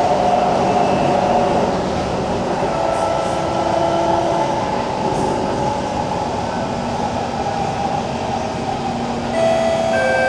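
Kawasaki C151 metro train running on its Toshiba PMSM traction system: steady wheel-on-rail rumble with motor and inverter tones that shift in pitch. It grows louder with several tones about nine seconds in.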